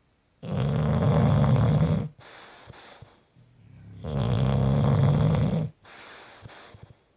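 A sleeping bulldog snoring: two loud, low snores, each about a second and a half long and about three and a half seconds apart, each followed by a quieter, softer breath.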